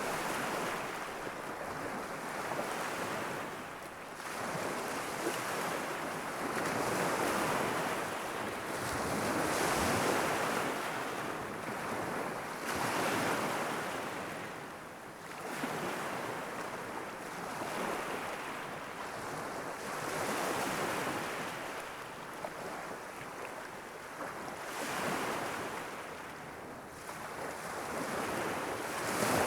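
Sea waves washing against a rocky shore, swelling and ebbing every few seconds in a steady rhythm, with some wind on the microphone.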